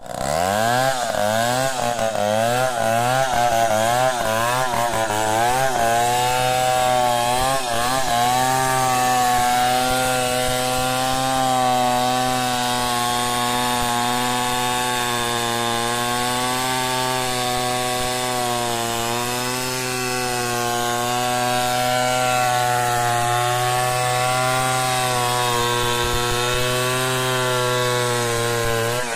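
Stihl 070 two-stroke chainsaw ripping a log lengthwise into boards. For the first six seconds or so the engine pitch rises and falls about once a second, then it holds a steady high note under load through the cut.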